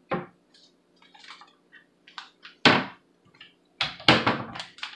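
Household handling sounds: a few knocks and clunks as things are moved about, the loudest about two and a half seconds in, then a plastic pouch of matcha powder crinkling as it is picked up and handled near the end. A faint steady low hum lies underneath.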